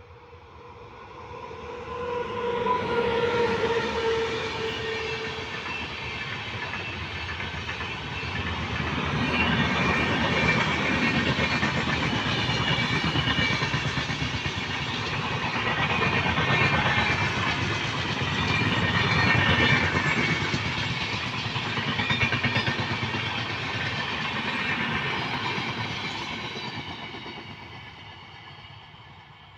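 Indian Railways train passing, its wheels clattering over the rail joints. The sound swells over the first few seconds and fades away near the end. A horn sounds a couple of seconds in.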